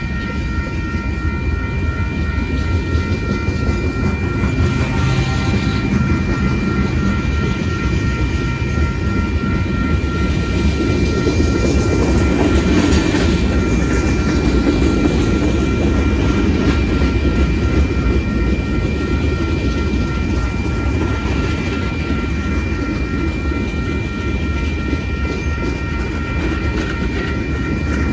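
Freight train cars rolling steadily through a grade crossing: a continuous rumble of steel wheels on rail with some clatter, a little louder in the middle. Over it the crossing's warning bell rings on without pause.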